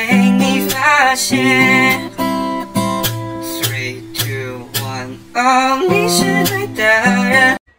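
Background music with strummed acoustic guitar, cutting off abruptly near the end.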